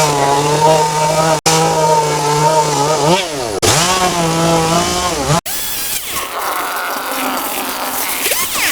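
Small engine of a handheld power tool running fast at a steady pitch. Its pitch sags and recovers about three seconds in, and the sound breaks off sharply three times. After about five and a half seconds it gives way to a quieter, hissier sound.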